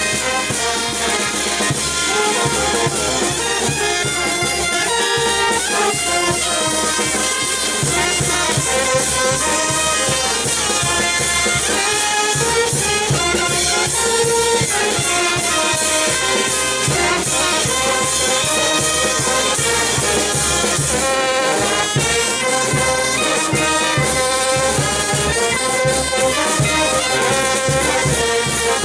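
Banda orquesta playing: brass and saxophones carry a melody over a steady drum beat.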